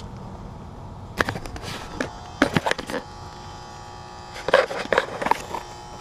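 Sheet-metal access panel of an air-conditioner condenser unit being handled and pulled off, with two bursts of clanks and rattles, about a second in and again near the end. A steady electrical hum runs underneath.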